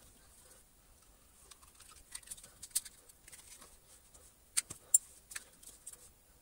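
Faint handling noise of a vacuum cleaner's plastic handle housing and mains cable being worked by hand: scattered light clicks and rustles, with two sharper clicks close together about three quarters of the way through.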